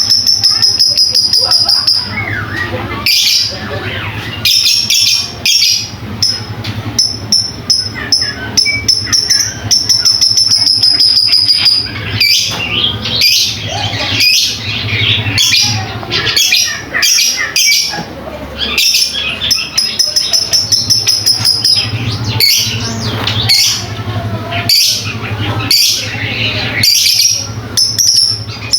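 Lovebirds chattering and squawking in a rapid, busy stream of calls, over a high, steady, buzzing trill that repeats in bursts of about two seconds.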